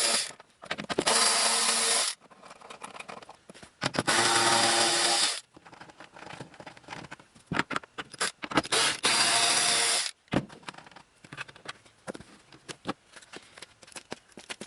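Power tool spinning the nuts off the studs of the 12-volt battery cover panel, in three runs of about a second and a half each, with small clicks and rattles of the nuts and the tool being handled between them.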